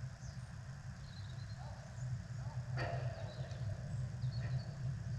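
Low steady rumble of outdoor background noise with faint distant shouts from players, and one sharp thud a little under three seconds in, like a football being struck.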